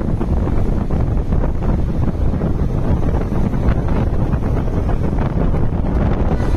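Steady low engine and road rumble of a Super Luxury bus on the move, heard from inside, with wind buffeting the microphone.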